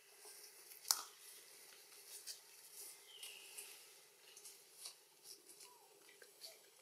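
Faint, scattered clicks and crunches of a young macaque chewing food, with one sharper click about a second in. A short falling chirp sounds a little after three seconds in.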